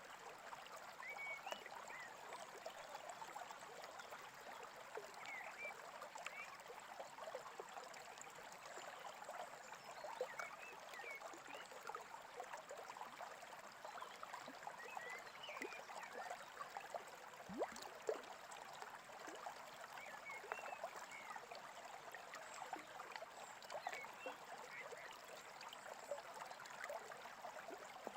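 A small brook trickling and gurgling steadily, with brief bird chirps now and then and a couple of sharp clicks about two-thirds of the way in.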